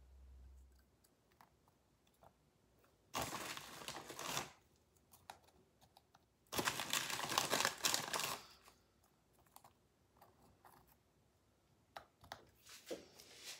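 Crinkling of a vanilla-wafer package in two bursts, one about three seconds in and a longer one at about six and a half seconds, with light clicks and taps as wafers are set in place in a glass trifle bowl.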